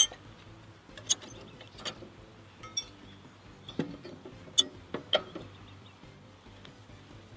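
Irregular sharp metal clinks and clicks, about eight of them, as a rotary mower's steel blade and blade hub are handled and taken off the upturned deck during a hub replacement.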